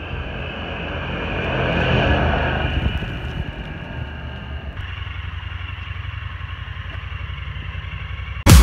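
Honda Pioneer side-by-side's engine as the machine drives past, getting louder to a peak about two seconds in and then fading; from about five seconds in, a steady low engine sound. Loud electronic music cuts in at the very end.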